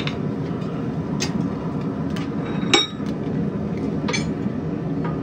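Irregular light metal-on-metal strikes on a red-hot mild steel bar held in a vise, about one a second. The loudest, near the middle, rings briefly. A steady low rumble runs underneath.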